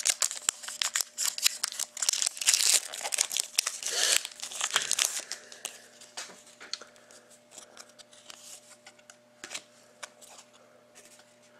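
A 2013-14 Panini Crown Royale hockey card pack being torn open, its wrapper crinkling and tearing for about the first five seconds. After that come fainter, scattered rustles and clicks as the cards are handled.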